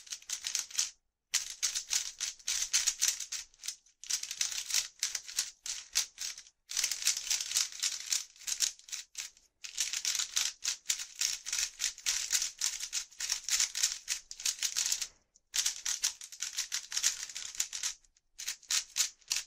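Plastic 3x3 speed cube, a new MoYu WeiLong v2 straight out of the box, turned rapidly by hand: a fast, dense clicking and clacking of layers snapping past each other, broken by a few short pauses.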